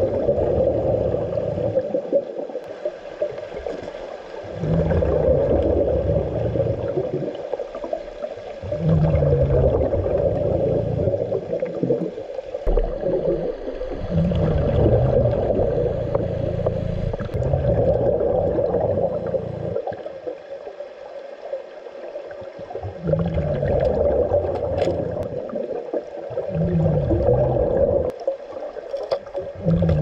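Diver breathing through a regulator underwater: a bubbling rumble of exhaled bubbles swells and fades every few seconds, over a steady hum.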